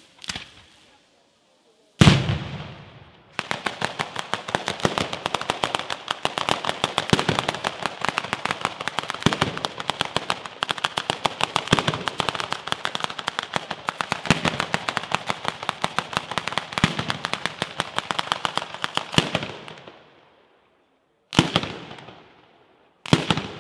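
Ground-level firecracker battery going off. A loud bang about two seconds in is followed by a rapid, unbroken string of firecracker reports lasting about sixteen seconds, which thins out and stops. Two single loud bangs come near the end.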